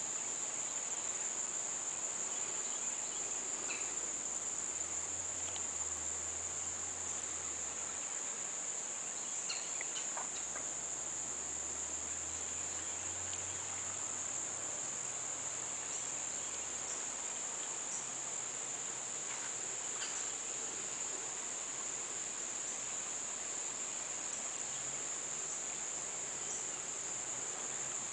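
A steady chorus of insects: one continuous high-pitched trill that holds unchanged throughout.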